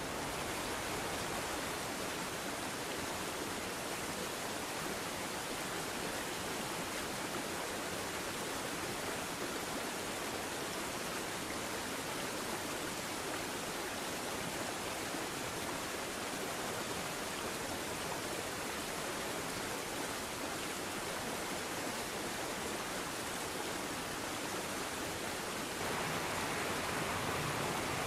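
Steady rushing of a creek, an even hiss with no breaks, stepping up a little louder and brighter near the end.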